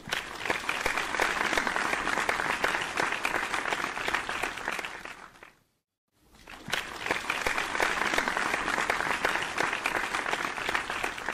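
Applause, many hands clapping. It fades out a little after five seconds, stops for about half a second, then starts again and fades out near the end.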